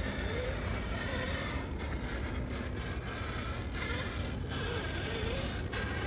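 Electric motor and gears of a radio-controlled Squarebody scale truck whining, the pitch swooping up and down several times with the throttle, over a steady low rumble.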